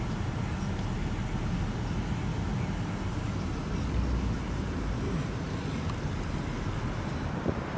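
Steady low rumble of a car driving, engine and road noise.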